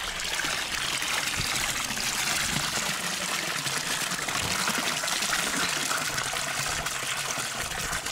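Water pouring in a steady stream out of a drain hole in a hollow plastic dock ladder step as it is lifted out of the water, splashing into the lake below.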